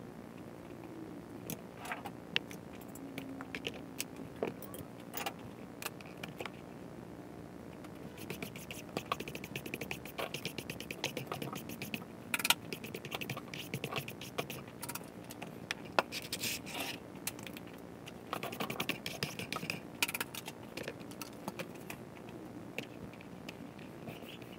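Workbench handling noise: tools and guitar parts being picked up, set down and slid across the bench, giving scattered scrapes, clicks and light knocks that come in busy clusters.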